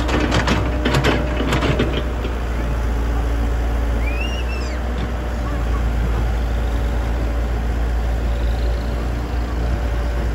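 Komatsu PC78US excavator's diesel engine running steadily while the hydraulic boom and arm reach out and down to dig. In the first two seconds there is a rapid run of clattering knocks.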